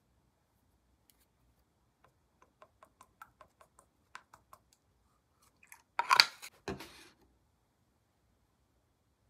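A nearly empty plastic toner bottle and a cotton pad being handled: a run of light clicks, about four a second, as the bottle is tipped onto the pad, then a louder scuffing clatter about six seconds in as the bottle is capped and set down.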